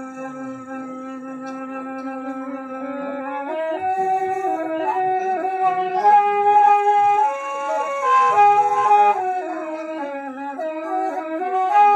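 Toraja long bamboo flutes (suling) playing a slow melody of long held notes that step up and down in pitch, with more than one note sounding at a time.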